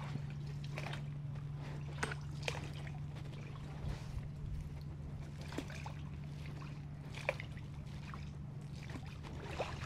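Paddle strokes in calm, still water: the blade dips in and water trickles and drips off it, a stroke every second or two, unevenly spaced, over a steady low hum.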